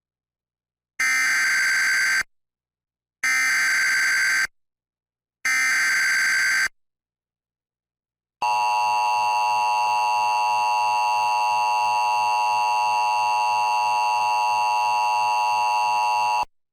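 Emergency Alert System tones opening a severe thunderstorm warning. First come three bursts of the SAME digital header's buzzy data tones, each about a second long with short gaps between. Then the steady two-tone EAS attention signal sounds for about eight seconds.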